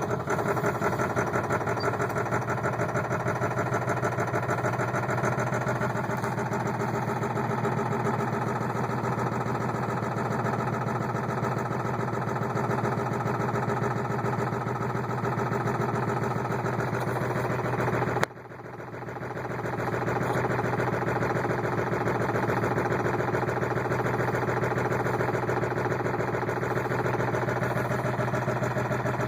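Ford 7.3-litre V8 diesel idling steadily just after a hard start. About 18 seconds in there is a sharp click, and the sound briefly dips before coming back up.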